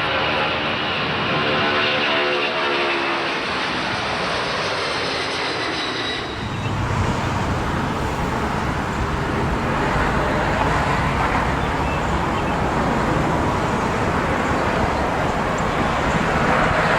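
Steady mechanical roar with a low rumble, and a droning hum that slowly falls in pitch over the first six seconds.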